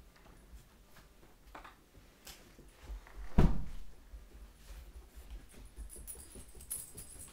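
A single dull thump about three and a half seconds in, among scattered light clicks and knocks; near the end a faint high crackle.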